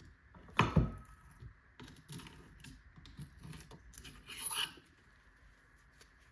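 Handling noises from mountain-bike fork parts being moved and set down: a solid knock about half a second in, light clicks and taps, then a clatter with a brief metallic ring near the middle.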